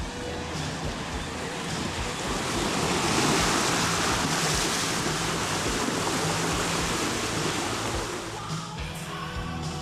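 Rushing splash of water as a 2008 Nissan Frontier Nismo pickup drives through a shallow creek, swelling to its loudest about three to five seconds in and easing off after about eight seconds, with background music underneath.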